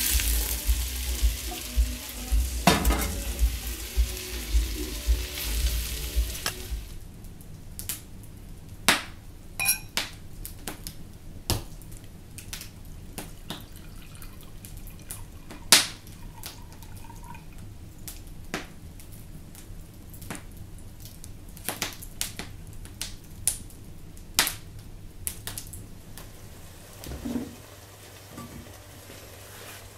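Food frying and sizzling in a pan while being stirred, with a few knocks of the utensil; it stops suddenly about six seconds in. After that come scattered clinks and taps of kitchen utensils and dishes.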